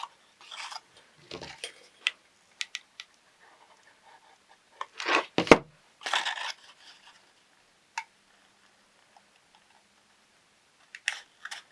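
Folded cardstock being handled and pressed together: scattered light taps and soft rustles, with two louder crinkling rustles about five and six seconds in.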